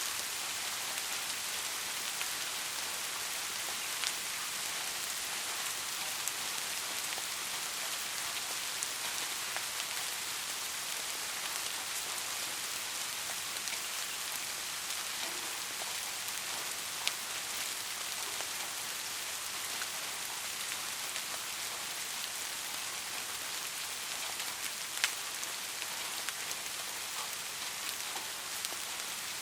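Steady soft rain, a fine even hiss with scattered sharper drips; a few louder single drops stand out, the clearest near the end.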